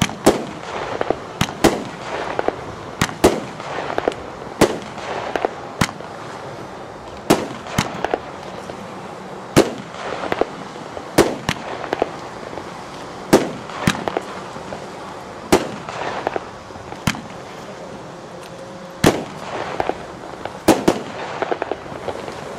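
Nico 'Red Tears' 13-shot 36 mm firework battery firing: shells launch from the tubes one after another, each followed by a sharp bang as it bursts in the air. The bangs come at uneven gaps of about half a second to two seconds.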